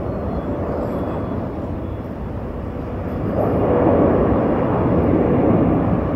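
Jet engine noise of a Boeing 777-300ER coming in to land: a steady rushing rumble that grows louder about three seconds in.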